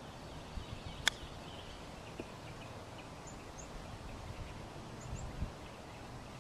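A single sharp click about a second in as a chipping club strikes a golf ball, over a faint outdoor background with small birds chirping.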